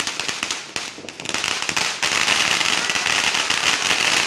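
New Year fireworks crackling: a rapid string of sharp pops that thickens about two seconds in into a dense, continuous crackle.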